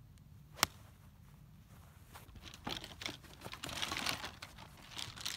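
A golf iron strikes a ball with a single sharp click about half a second in. From about two seconds in, rustling with scattered knocks as the golf stand bag is grabbed and slung onto the shoulder.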